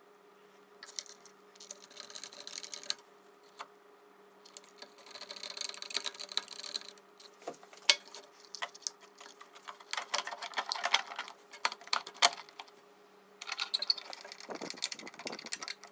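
Workbench handling noise: irregular clicks, light metallic rattles and short scraping bursts as hardware is handled during reassembly, over a faint steady hum.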